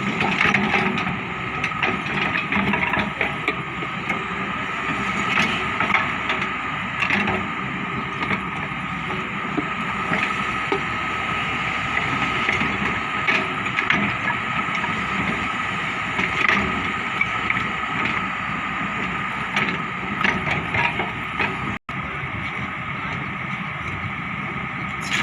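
Hyundai excavator's diesel engine running steadily while digging, with a steady high tone over it and frequent knocks and clanks.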